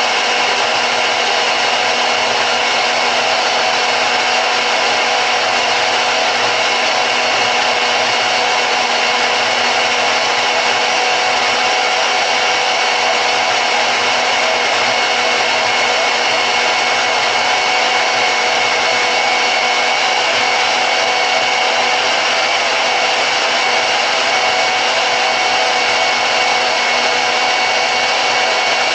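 Harbor Freight 10-amp deep-cut variable-speed portable band saw running, its motor giving a steady whir with a constant hum.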